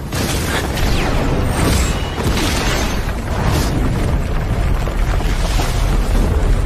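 Action-scene sound design over dramatic music: deep booming rumble with swelling whooshes and hits every second or two.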